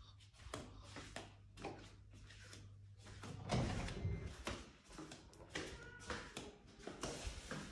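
Footsteps in slide sandals on a hard floor, mixed with scattered knocks and clicks, and a cluster of louder thuds about three and a half seconds in. A low steady hum stops about three seconds in.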